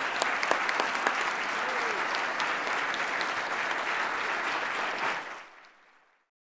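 Audience applauding steadily, then fading out about five seconds in.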